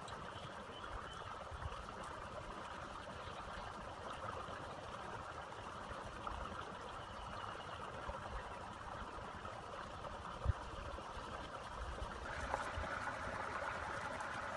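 Small stream flowing steadily, a continuous trickling wash, with a few soft knocks from hands working bamboo and cane strips and one low thump about ten seconds in. The water grows a little louder near the end.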